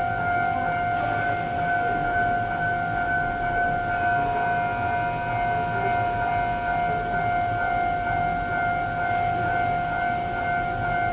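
A steady electronic tone held without a break, with a second, higher set of tones joining it for about three seconds in the middle.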